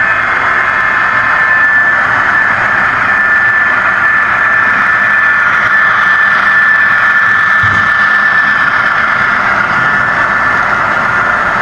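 HO-scale model train running past, two diesel locomotives hauling coal hoppers: a steady engine-like drone with a thin high whine.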